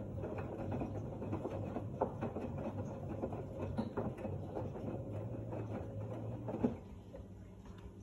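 LG F1289TD direct-drive front-loading washing machine running, its drum turning laundry and water with a hum and a dense patter of small sloshes and clicks. About two thirds of the way through there is a sharp knock, and the sloshing stops, leaving a fainter hum.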